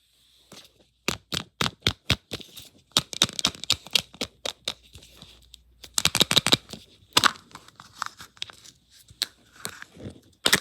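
Irregular crinkling, tearing and sharp plastic clicks of surprise eggs being unwrapped and cracked open by hand, in uneven clusters.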